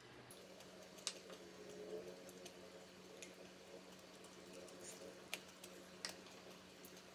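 Faint clicks and scrapes of wooden spoons against the dishes as fried rice is scooped up, a handful of separate taps over quiet room tone with a low steady hum.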